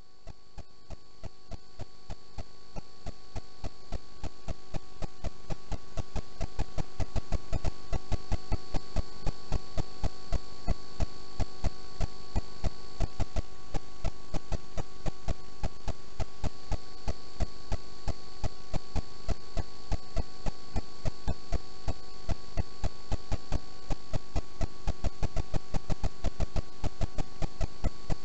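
Steady electrical hum with several fixed tones, overlaid by a regular sharp ticking two or three times a second; it fades in over the first several seconds and then holds steady.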